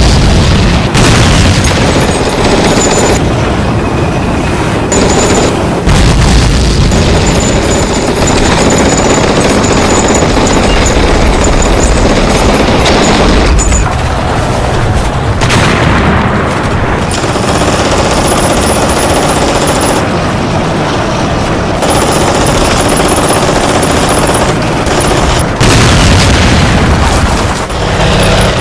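War-film battle sound: machine-gun fire and explosions, dense and loud.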